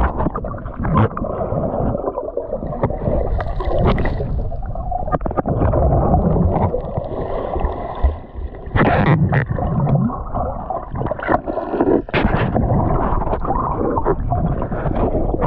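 Water sloshing and gurgling as heard by a microphone held underwater: a muffled, continuous rumble with bubbling and many small clicks and knocks.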